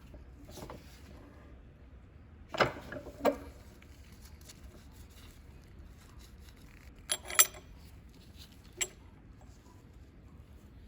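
Small hard objects handled and set down: a few sharp clicks and knocks, two a little after two seconds in, a quick pair about seven seconds in and one more shortly after, over quiet room tone.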